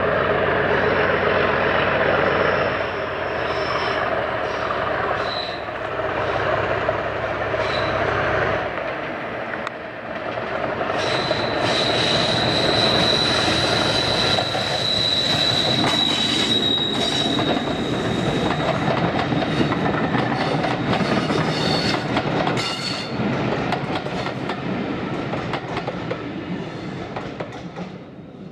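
Class 37 diesel locomotive with its English Electric V12 engine running under power as it hauls coaches past. The deep engine rumble drops away about a third of the way in. A steady high wheel squeal from the curve follows for several seconds, with clicks over the rail joints, and the sound fades as the train goes away near the end.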